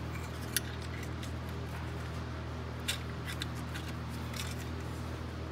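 A few short metal clicks from a pick working at the ATV's rear differential, over a steady low hum.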